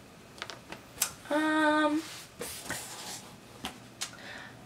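A woman's short, level hummed "hmm" about a second in. Around it are a few light taps and cloth rustles from a T-shirt being handled and laid down.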